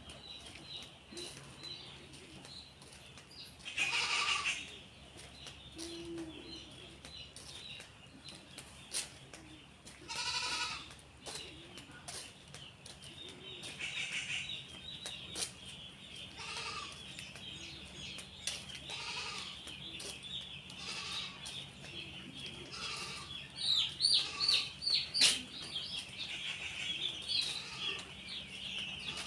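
A flock of chickens calling in a poultry house: a dense, continuous chatter of high calls, with a few louder squawks about four and ten seconds in, over a steady low hum.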